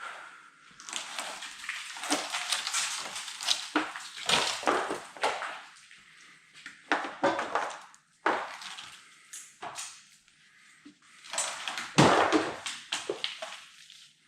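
Hands-on work on rusty bodywork: irregular scraping, clattering and knocking of metal and debris, with the loudest knock about twelve seconds in.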